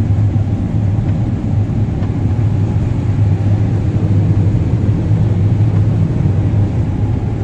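Combine harvester running steadily while harvesting corn: an even engine and machinery drone with a deep hum.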